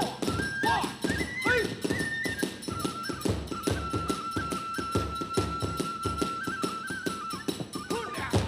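Kagura hayashi ensemble playing fast battle music: rapid, steady strokes of drum and small hand cymbals under a bamboo transverse flute that plays a short stepped melody, then holds one long high note through the middle.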